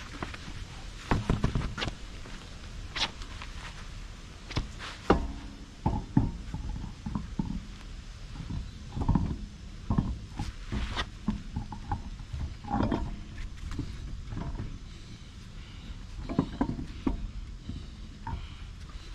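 Irregular knocks, clunks and scrapes of hands-on work as a wheel and tire are put back on the car, with no steady machine sound.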